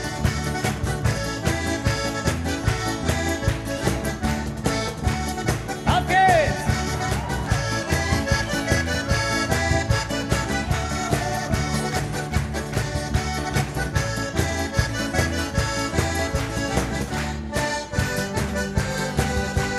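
Band music led by a diatonic button accordion (Steirische Harmonika) playing an instrumental passage, over electric bass and a steady beat.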